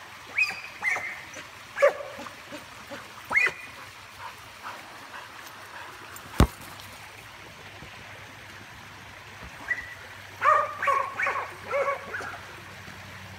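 Karelian bear dog giving short, high-pitched yips and barks, a few scattered through the first four seconds and a quick run of them near the end. A single sharp knock about six seconds in.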